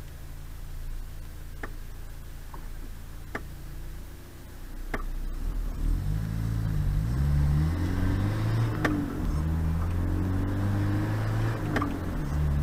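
Car engine idling quietly with a few sharp clicks, then pulling away and accelerating about five seconds in, its pitch climbing and dropping back at each of several gear changes, heard from inside the cabin.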